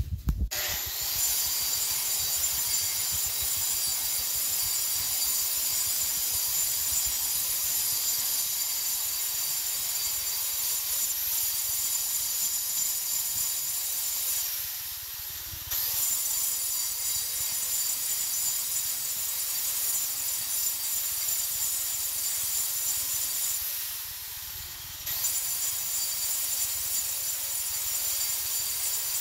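Power grinder grinding a concrete floor: a steady high-pitched whine over a gritty rasp. It spins up about half a second in, eases off briefly twice (about halfway through and again near the end) and comes straight back to full load.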